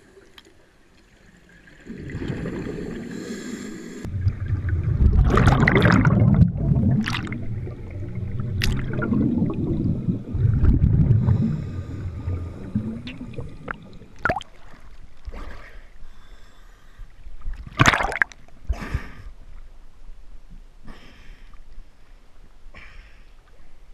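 Scuba regulator exhaust bubbles gurgling past an underwater camera in long low bursts, then a few sharp splashes and knocks of water as the camera reaches the surface.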